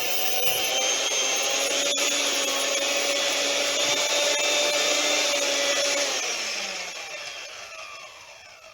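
Electric hand mixer beating a cream cheese mixture, its motor whining steadily. About six seconds in it is switched off: the pitch falls and the sound fades as the beaters spin down.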